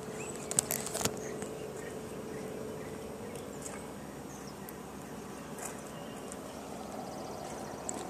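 Quiet outdoor background ambience: a steady low hiss, with a few sharp clicks about a second in and a couple of faint short chirps later on.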